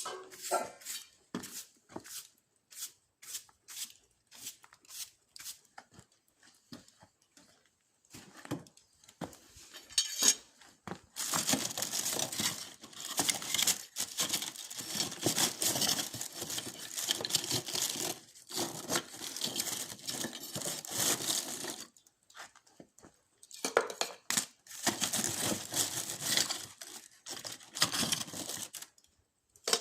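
Paper being crumpled and torn in two long rustling stretches, after several seconds of scattered light clicks and taps.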